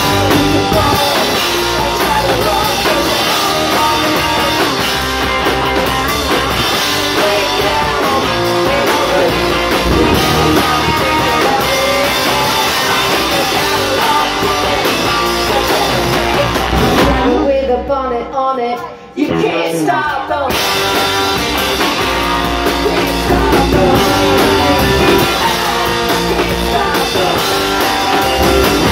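Live rock band playing, with electric guitars, a drum kit and women singing. About two-thirds of the way through, the band stops for a couple of seconds, then comes back in full.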